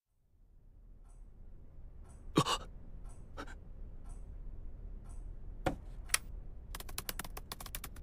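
Low, steady room hum with a few separate clicks, the loudest about two and a half seconds in, then a quick run of computer-keyboard typing clicks near the end.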